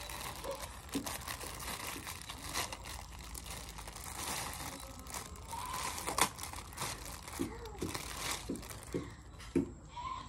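Thin clear plastic bag crinkling and rustling in irregular crackles as it is handled and pulled open to free the statue inside.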